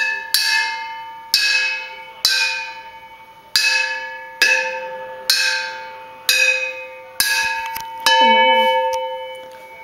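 A steel wok, machine-pressed into a hang drum and hanging from a string, is struck about ten times, roughly once a second. Each strike rings like a bell on the same two main notes and fades before the next. Near the end one louder strike rings on longer, with a wavering lower tone under it.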